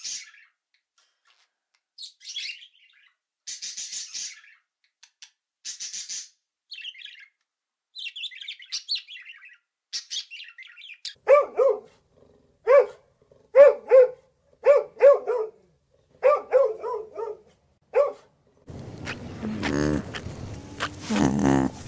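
Scarlet macaw calling: high chirps and squeaks at first, then a run of short, loud, harsh calls, mostly in quick pairs, about a dozen over some seven seconds. Near the end a lower, continuous sound takes over.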